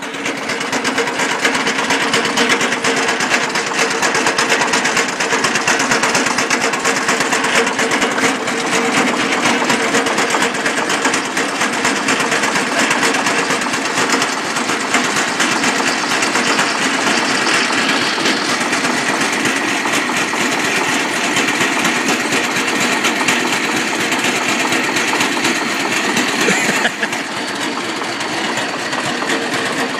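Homemade tractor's engine running steadily, driving a belt-and-pulley saw rig, with a fast, even mechanical clatter. It gets a little quieter near the end.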